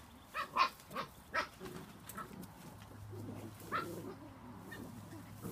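Seven-week-old Spanish Water Dog puppy barking in short high yips: a quick run of four in the first second and a half, then two more, the last nearly four seconds in.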